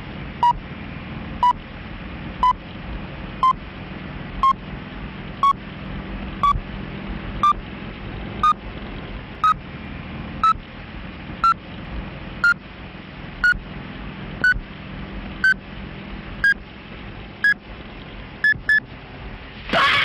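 Electronic countdown beeps, one a second, each a little higher in pitch than the last, with two quick beeps close together near the end, counting down to a car crash. Under them runs a steady low hum.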